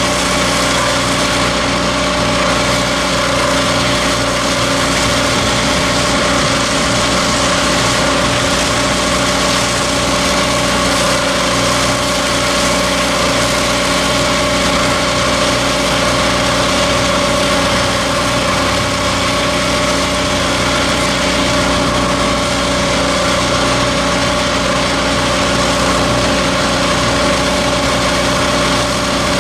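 Hydroseeder's engine running steadily at a constant speed, driving the slurry pump, with the hiss of mulch slurry spraying from the hose.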